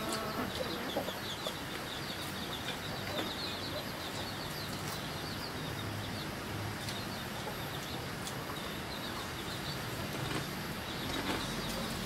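Outdoor ambience: a steady background hiss with birds chirping in quick repeated runs, busiest in the first few seconds.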